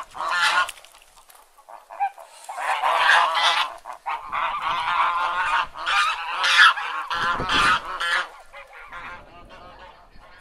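A flock of domestic white geese honking, many calls overlapping. A short lull comes about a second in, then a long stretch of busy honking that thins out and fades over the last couple of seconds.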